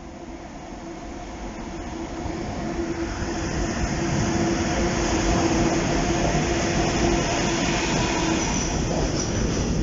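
A freight train hauled by two Bombardier Traxx electric locomotives approaches and passes. It grows louder over the first few seconds into a steady rumble of wheels on rails, with a steady hum from the locomotives. Near the end a thin, high wheel squeal comes in.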